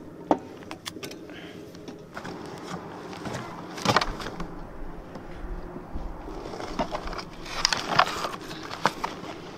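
Handling noises: a few sharp knocks and clatters as a hard-shell case is picked up and carried, over a steady low background noise.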